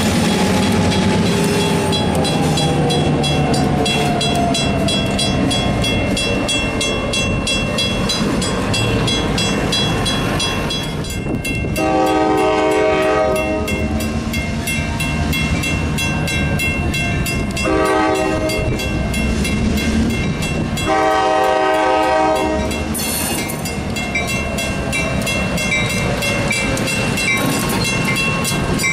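Diesel locomotive horn on an EMD GP38-2 sounding for a grade crossing: a long blast, a short blast and another long blast, starting about twelve seconds in. Under it, the locomotives' engines run and the train's wheels rumble steadily, and a crossing-signal bell rings in a fast, even rhythm.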